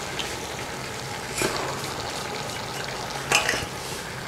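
Beef with onions, tomatoes, yogurt and spices frying in oil in a pot over a full flame, sizzling steadily as it is stirred. Two sharper scraping sounds come about one and a half and three and a half seconds in.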